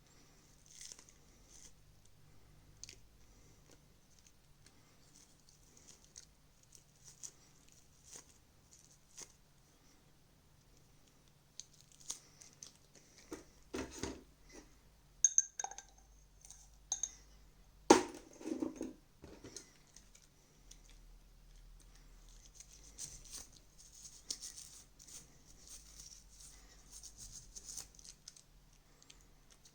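Faint scratching and rubbing of small plastic and rubber parts of a disassembled TV remote being scrubbed clean, with scattered light clicks. A few louder knocks come in the middle, the loudest a sharp knock about 18 seconds in.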